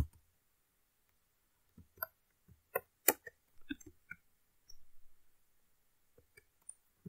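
Computer keyboard keystrokes: scattered single key clicks, with a quick run of keys about five seconds in. The loudest is a sharp knock right at the start.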